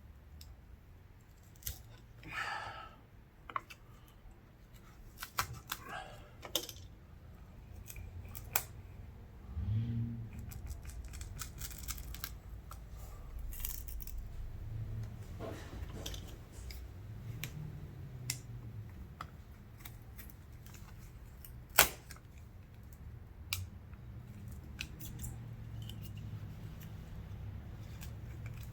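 A thin metal pry tool scraping and slicing through screen adhesive along a phone's plastic frame, with scattered small clicks and scrapes and one sharp click about 22 seconds in. A low hum runs underneath from about ten seconds in.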